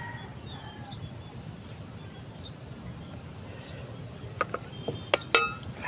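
A metal spoon clinking sharply against a dish four or five times near the end, as broth is spooned onto the food, with brief ringing after each strike. Faint bird chirps sound in the background.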